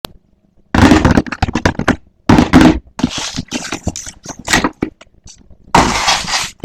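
Blind-box toy packaging being handled and opened: crinkling, crackling and scraping in loud irregular bursts.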